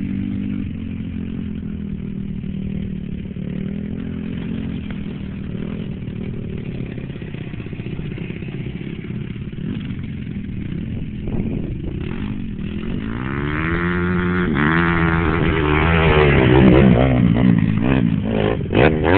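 Yamaha Raptor 700R ATV's single-cylinder engine running at a steady pitch at a distance. In the second half, an off-road engine revs hard with pitch rising and falling, getting much louder around two-thirds of the way through, then easing off.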